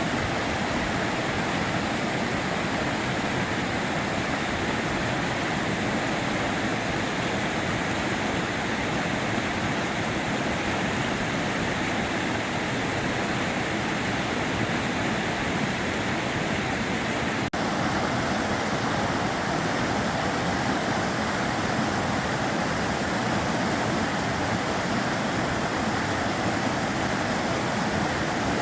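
Sava River water flowing in a steady, even rush. About two-thirds of the way through there is a momentary break, after which the rush is a little brighter.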